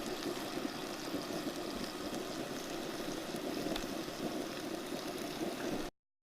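Dinner cooking on a stove: a steady hiss, typical of food sizzling or boiling over a burner, which cuts off suddenly near the end.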